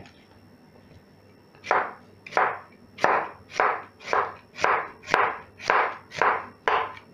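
Chef's knife slicing an onion on a wooden cutting board: even cuts about two a second, starting nearly two seconds in, about ten in all.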